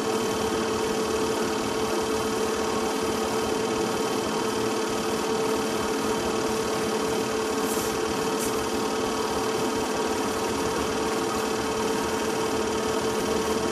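Film projector running: a steady mechanical whirr with a constant mid-pitched hum.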